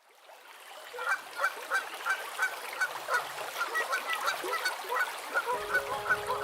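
Geese honking, about three calls a second, fading in over the first second. Music comes in near the end.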